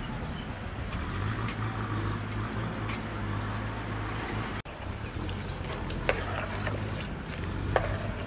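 A metal ladle clinks a few times against a metal cooking pot as a coconut-milk dessert is stirred, over a steady low rumble. The sound cuts out for an instant about halfway.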